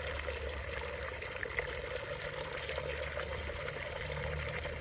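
A steady stream of water pouring from a metal pipe spout and splashing onto a wet slab below.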